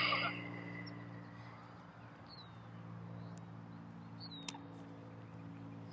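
A few short, falling bird chirps, about two seconds in and again past four seconds, over a steady low hum.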